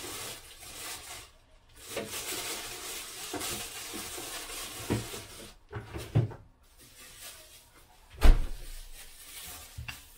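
Kitchen handling noises: a rustle lasting a few seconds, a few sharp knocks, then one heavy thump about eight seconds in, the loudest sound.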